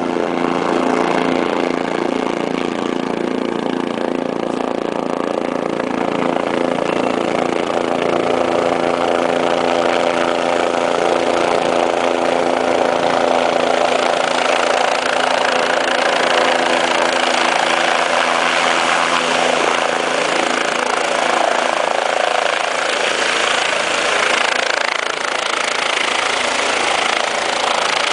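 Helicopter running as it comes in to land, a steady engine-and-rotor hum of several held tones that turns into a louder rushing noise about halfway through as it nears the ground.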